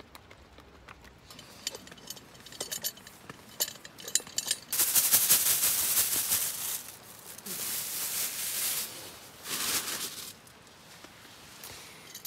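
Plastic bag rustling and crinkling as raw meat is shaken out of it into a frying pan. It comes in three loud crackling bursts about two seconds apart, after a few light clicks and taps of utensils.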